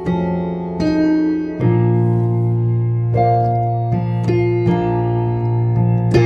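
Solo piano playing slow, sustained chords of a gospel song, each chord struck and left to ring. A deep bass note comes in about a second and a half in and holds under the changing chords.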